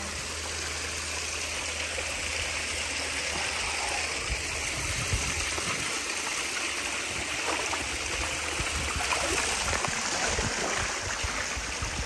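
Water spilling through a sandbag wall and splashing into a pool, a steady rushing trickle.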